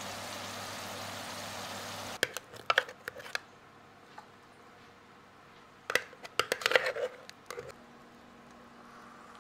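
Kitchen handling noises: a steady hiss with a low hum stops suddenly about two seconds in, then come two short runs of clicks and knocks, like utensils and food being handled on a counter.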